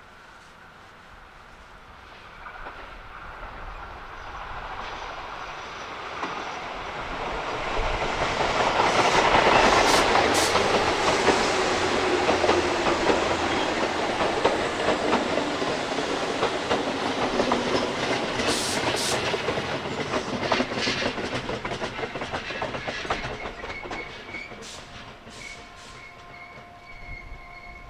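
Tobu electric train approaching and passing, wheels clattering rapidly over the rail joints. It grows loud about ten seconds in, holds for a long stretch as the cars go by, then fades away.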